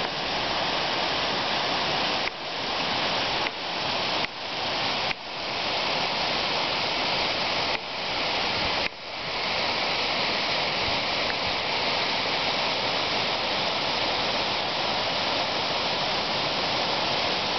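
A small mountain waterfall cascading steadily down a rocky chute. Its rushing drops sharply and swells back about six times in the first half.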